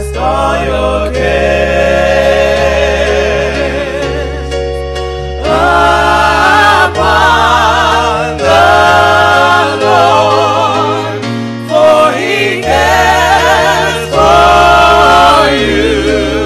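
Gospel music: voices singing long held notes with a wide vibrato over a steady low bass, phrase after phrase with short breaks between them.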